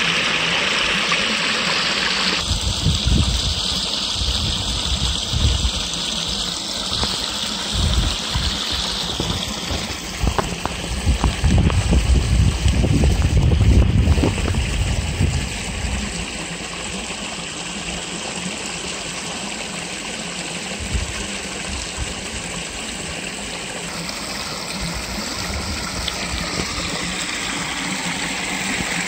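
Water spilling over a small stone-and-concrete weir into a pool: a steady rushing and splashing. A stretch of low rumbling buffets near the middle is the loudest part.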